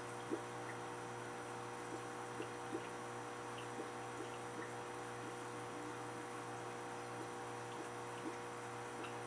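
Aquarium filter running with a steady hum, and water dripping in small irregular plinks, about one or two a second.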